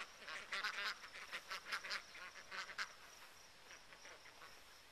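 A flock of female Swedish Blue and Indian Runner ducks quacking in a rapid run of short calls, which dies away about three seconds in.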